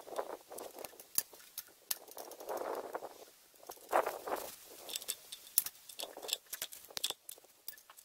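Water sprayed from a hose nozzle onto the MTZ-52 tractor's engine in short bursts of about half a second, with sharp spattering clicks as it hits the metal.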